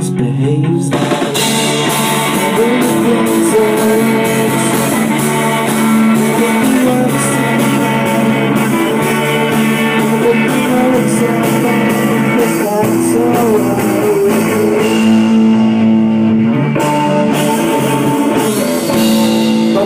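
A rock band playing live and loud: distorted electric guitars over a drum kit, with the full band coming in about a second in after a lone guitar.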